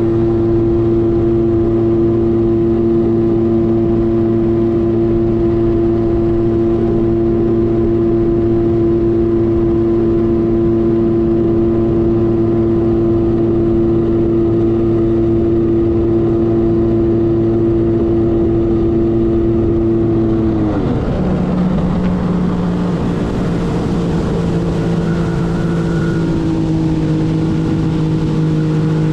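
1997 Arctic Cat TigerShark Monte Carlo 1000 personal watercraft's two-stroke engine running at a steady high speed, then throttled back about two-thirds of the way through, the revs dropping to a lower steady speed.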